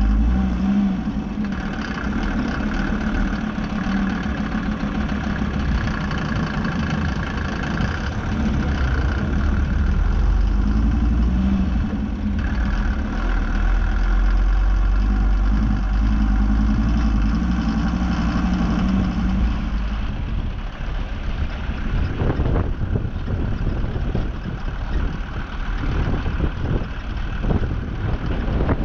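ARO 4x4's engine running as the vehicle drives, a steady hum. About twenty seconds in the steady note drops away and a rougher, uneven rushing noise takes over.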